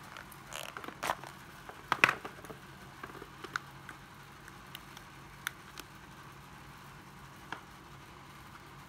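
Scattered sharp plastic clicks and knocks from a 12V cordless drill-driver being handled, the loudest about two seconds in, over a faint steady hum.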